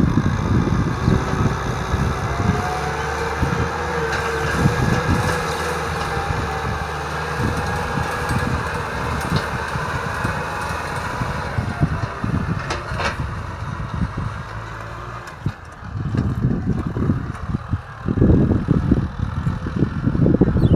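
Kubota tractor's diesel engine running with a steady drone; it drops back briefly about fifteen seconds in and grows louder again near the end.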